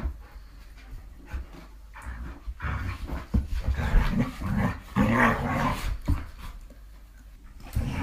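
A dog growling and grumbling, loudest from about two and a half to six seconds in.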